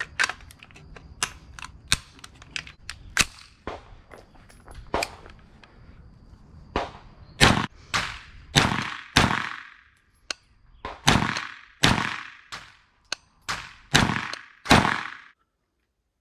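A 9mm Aero Precision EPC-9 AR-style gun firing a string of about ten shots, roughly half a second to a second apart, each with a ringing tail, starting about halfway through. Before the string there are fainter sharp cracks and clicks.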